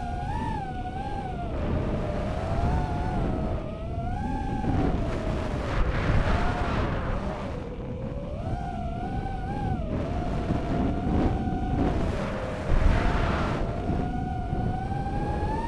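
Racing quadcopter's Racerstar BR2306S 2700 kV brushless motors on DAL 5045 props, heard from onboard, their whine rising and falling in pitch with the throttle and climbing near the end. A heavy rumble of wind buffeting the onboard microphone runs under it.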